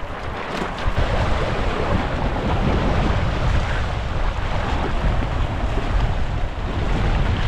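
Wind buffeting the microphone over water rushing and splashing past the hull of a Hobie Tandem Island sailing kayak moving through choppy waves.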